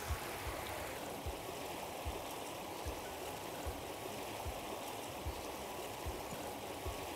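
Steady rush of flowing river water, with faint low thumps at an even pace, a little more than one a second.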